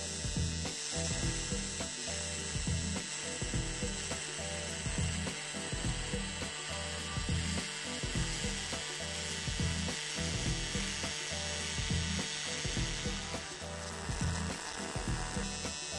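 AC TIG welding arc on aluminium, set to 150 amps, 150 Hz AC frequency and 60% AC balance, running with a steady rasping buzz and crackle. Near the end the buzz thins out for a moment and then returns.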